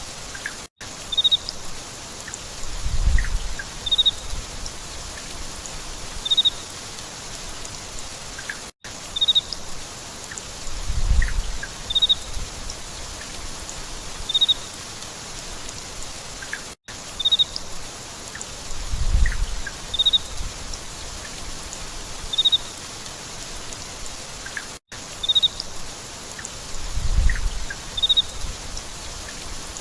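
Steady rain with a short, high bird chirp about every two to three seconds and a low rumble every eight seconds. The same eight-second stretch repeats as a loop, with a brief dropout at each repeat.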